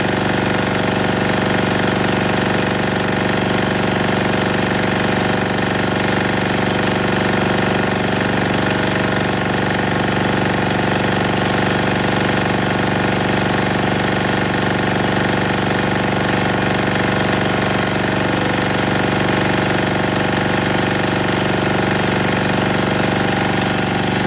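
Denyo DA-2405 portable diesel generator's single-cylinder engine running steadily under about 1.46 kW of heater load, burning diesel emulsified with 20% water.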